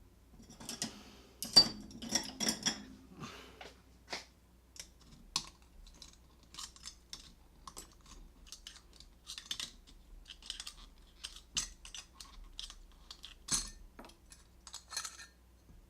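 Irregular light clicks and metallic clinks from the parts of a disassembled door lock being handled and turned over, a few a second, with louder knocks about a second and a half in and near the end.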